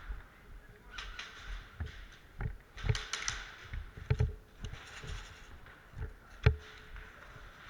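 Scattered sharp clicks and knocks, about a dozen at uneven intervals, some with a brief ringing tail; the loudest comes about six and a half seconds in.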